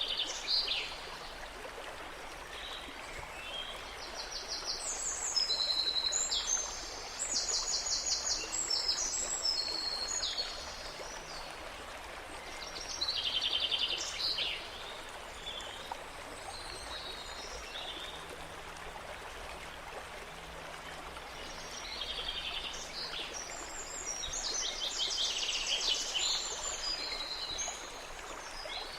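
Songbirds singing in groups of quick, rapidly repeated high notes over a steady rush like running water.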